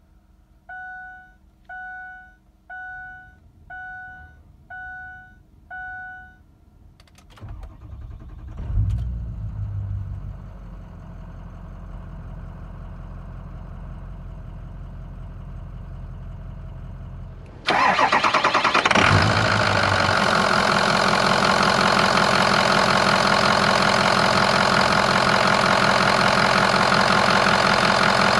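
A dashboard warning chime sounds six times, about once a second. Then the 6.0-litre PowerStroke turbo-diesel V8 cranks and starts about eight seconds in and settles into a steady idle. About eighteen seconds in the idle suddenly becomes much louder, as heard up close at the open engine bay.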